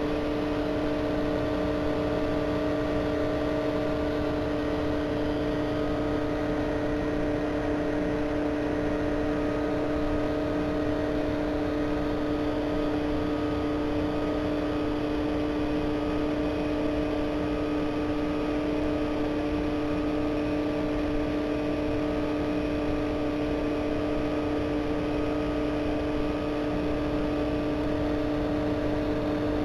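Steady electric hum from running aquarium equipment, several held tones over a faint hiss, unchanging throughout.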